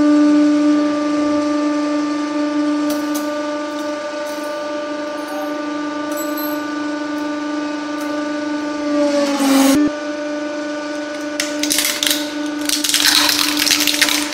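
Hydraulic press pump running with a steady hum. Its pitch sags under load about nine and a half seconds in, and a sharp crack follows. In the last few seconds plastic cracks and crunches as the press crushes a plastic toy.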